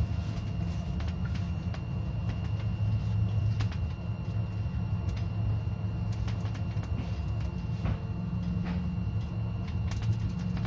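Stadler Citylink Class 399 tram-train running on main-line track, heard from its cab: a steady low rumble of motors and wheels on rail, with a thin steady high whine and scattered light clicks and rattles.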